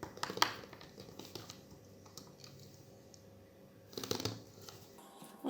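Light clicks and taps of a smartphone being handled during reassembly, small parts pressed into place: a cluster near the start and another about four seconds in.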